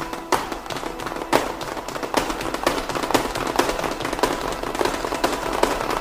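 An irregular run of sharp bangs and crackles like firecrackers, coming faster toward the end, over a steady sustained tone.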